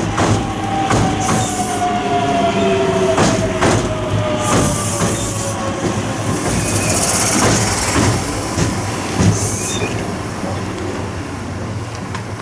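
Osaka Metro 66 series commuter train running past over the station's points: wheels click repeatedly over rail joints and switches, with bursts of high wheel squeal. A whining tone slides slowly down in pitch through the first half. The sound eases off near the end as the train moves away.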